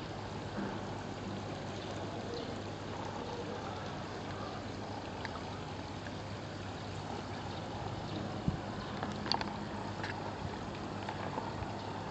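Steady trickle of water running into a garden koi pond, with a couple of faint clicks about eight and nine seconds in.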